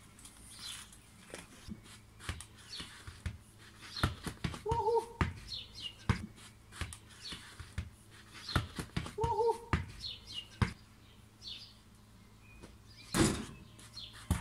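Songbirds chirping over and over in short falling notes, broken by bursts of thumps and knocks about four seconds in and again around nine to ten seconds, each with a short squeak, and one loud thump near the end.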